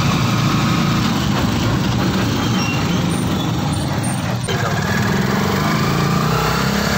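Rusi Chariot 175 three-wheeler's 175 cc engine running steadily in city traffic, with road and traffic noise around it. A single sharp knock about four and a half seconds in.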